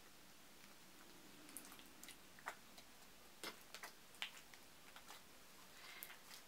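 Faint, irregular little clicks and pops of a glossy, jiggly slime being handled and pressed in the hands, starting about a second and a half in.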